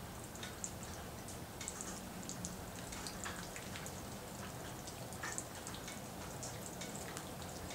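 Raindrops falling, heard as irregular sharp ticks and drips, several a second, over a steady low hiss of rain.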